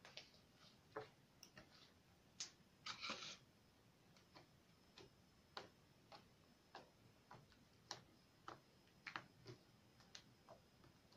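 Faint clicks and pops of homemade slime being squeezed and pressed against a tabletop by hand, one or two a second, with a short crackly run about three seconds in.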